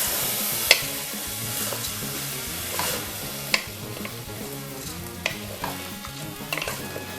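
Soaked basmati rice being stirred in hot ghee in a pressure cooker: a steady frying sizzle with scraping and sharp clicks of the stirring utensil against the pot every second or so.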